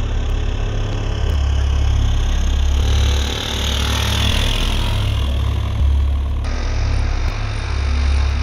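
Motorcycle engine running as the bike rides along the road, a steady low rumble. A rush of road and wind noise swells as the bike passes close, then cuts off abruptly about two-thirds of the way through.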